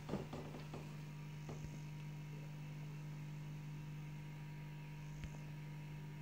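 Steady low electrical hum with a few light clicks in the first second and a couple of single ticks later.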